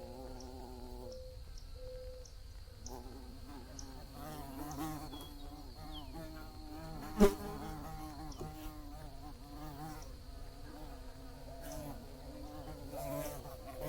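Bees buzzing, their hum wavering in pitch as they fly close and away, dropping off briefly a second or two in. A single sharp click about seven seconds in is the loudest sound.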